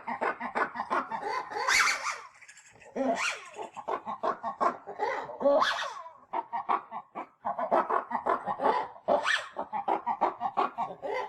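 Chickens clucking in a run of quick short notes, with a few louder, sharper calls among them.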